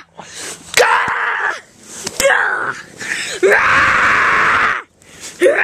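A boy screaming right into the microphone in several loud, rough bursts. The longest runs about a second and a half, starting about three and a half seconds in.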